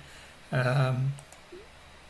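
A man's voice speaks briefly about half a second in; otherwise quiet room tone, with a faint computer mouse click.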